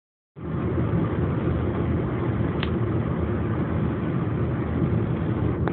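Car driving, heard from inside the cabin: a steady low rumble of engine and road noise that cuts in abruptly just after the start.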